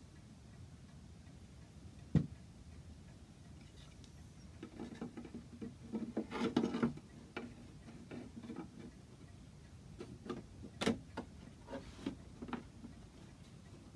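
Irregular light knocks and taps of hand work on wooden parts, with a brief spell of scraping and rubbing about six seconds in. Two sharper knocks stand out, one about two seconds in and one about eleven seconds in.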